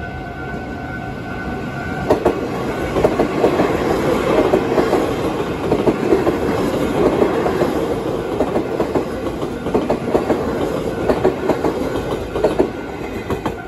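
Taiwan Railways EMU800 electric multiple unit passing at speed over a level crossing: a loud running rumble with rapid wheel clacks, building from about two seconds in and easing near the end. A level-crossing warning bell sounds a pulsing two-note tone at the start, then is drowned out by the train.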